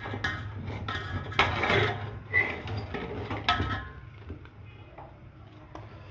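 Wire mesh strainer clinking and scraping against a metal pot as boiled eggs and potatoes are lifted out of the hot water. Several sharp metallic clinks, one with a brief ringing ping, fill the first four seconds, then the sound dies down.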